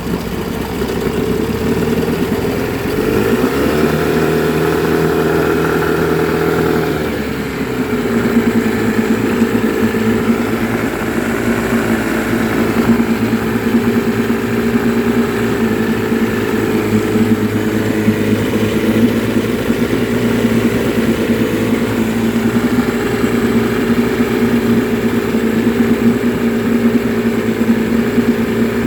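Mariner outboard motor running. It speeds up for a few seconds about three seconds in, then drops back to a steady idle for the rest.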